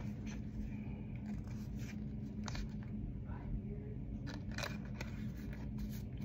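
Trading cards and plastic card sleeves being handled: soft rustles and light clicks scattered throughout, over a steady low hum.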